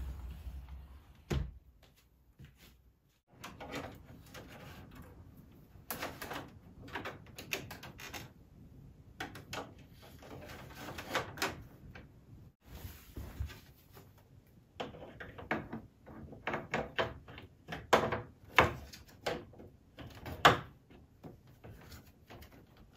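Plastic clicks, knocks and rattles from a wall-mounted split air conditioner as its hinged front panel is lifted and its mesh dust filters are handled and slid along their guides, in repeated clusters with the loudest knocks near the end.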